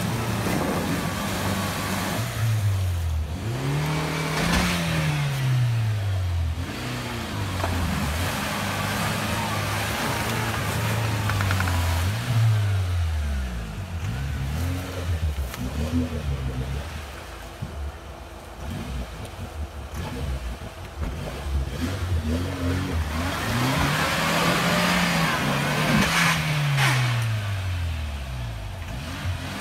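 UAZ 469 4x4's engine revving up and down under heavy load as it churns through deep mud. The revs climb and fall in long sweeps again and again, hardest about four seconds in and again near the end.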